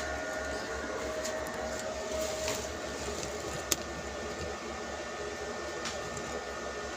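Steady machine-like whirring noise with faint steady tones in it, and one sharp click about halfway through.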